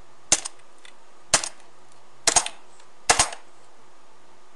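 Four sharp keystrokes on a computer keyboard, about a second apart, some with a quick second click.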